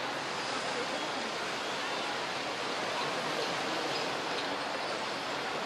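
Steady murmur of a large crowd, many indistinct voices blending into an even hiss, with no single sound standing out.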